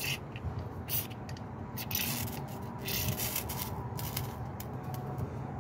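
Ferro rod scraped with a steel striker, a series of short rasping strokes about once a second, throwing sparks onto char cloth and fatwood tinder.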